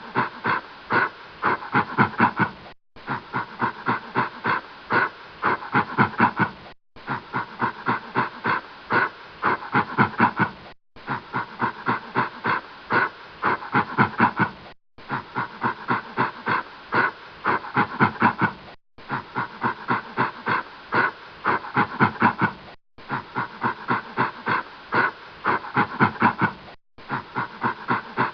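A gorilla grunting in quick, breathy grunts, several a second. It is a short clip of about four seconds, looped over and over with a brief gap between repeats.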